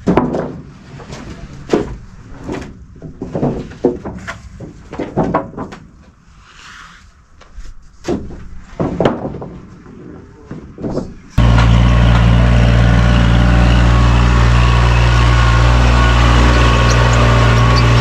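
Sawn wooden boards knocking and clattering as lumber is handled and stacked, an irregular series of sharp knocks. About eleven seconds in it switches abruptly to a compact tractor engine running steadily.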